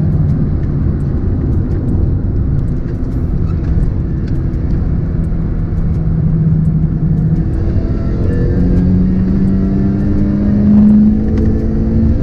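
Toyota 4A-GE 20-valve four-cylinder engine of an AE101 Corolla GT, heard from inside the cabin on the move over steady tyre and road noise. It holds steady revs at first, then from about eight seconds in climbs in pitch as the car accelerates.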